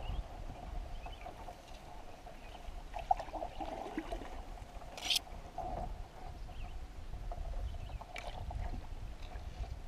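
Canoe paddled slowly through a reedy channel: soft water and paddle sounds, with a few short knocks and swishes. The loudest is a brief high swish about five seconds in.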